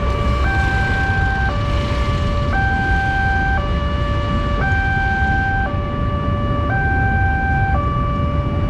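Railway level-crossing warning alarm sounding a steady two-tone hi-lo pattern, each tone lasting about a second, over the low rumble of idling motorbikes and cars.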